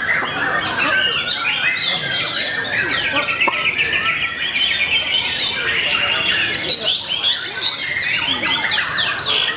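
Many caged songbirds singing at once in a dense, unbroken chorus of overlapping whistles, trills and rapid chirps, with white-rumped shamas (murai batu) among them.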